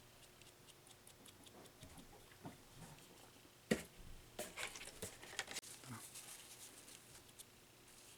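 Faint scattered clicks and taps of small plastic parts as the overdrive on/off switch is fitted back together. There is one sharper click a little under four seconds in, and a quick run of clicks about a second later.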